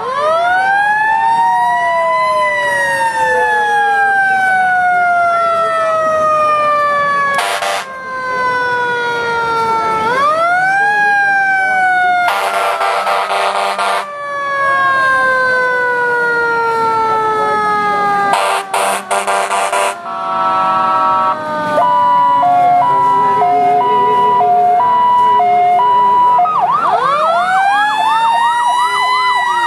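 Emergency-vehicle sirens from parade fire trucks wailing: each cycle rises quickly and then falls slowly, repeating. Several long horn blasts break in, and a two-tone hi-lo siren alternates briefly near the end.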